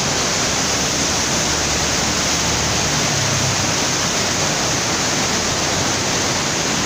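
Torrential rain and floodwater pouring over an overflowing dam spillway: a loud, steady rush of water.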